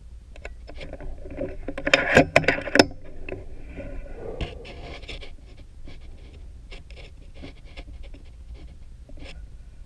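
A quick run of sharp knocks and clicks about two seconds in, the loudest sounds here, then scattered lighter clicks and rubbing: handling noise from the air rifle as it is moved on its rest.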